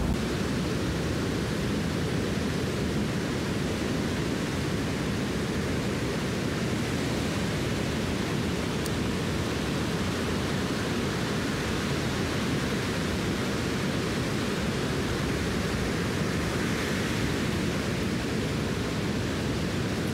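Steady noise of surf breaking on a sandy beach, mixed with wind, an even hiss with no separate events.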